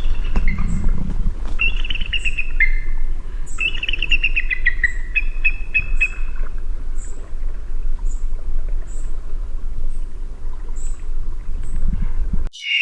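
Eagle calling in runs of rapid, high piping chirps that step down in pitch, over a steady low rumble. The recording cuts off sharply near the end and a louder call begins.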